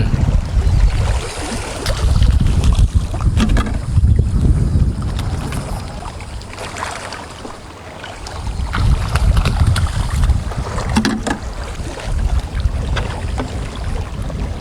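Strong gusting wind buffeting the microphone, a heavy rumble that swells and eases, with a few faint clicks.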